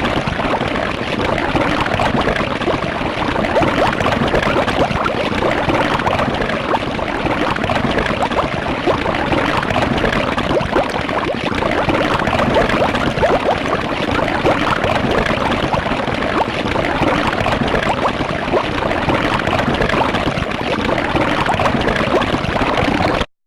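Cartoon-style juicy bubbling squirt sound effect: a dense, continuous wet bubbling and squishing at an even level, cutting off suddenly near the end.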